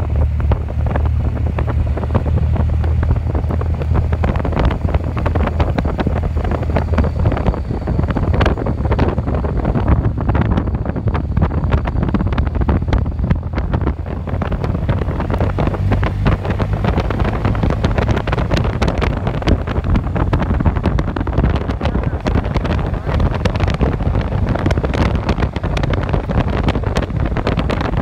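Wind buffeting the microphone over the low rumble of a vehicle driving along a road.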